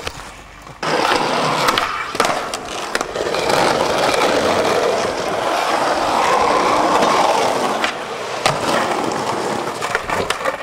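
Skateboard wheels rolling loudly over rough pavement, broken by several sharp clacks of the board hitting the ground as the skater pops and lands tricks. There is a short quieter gap about the first second.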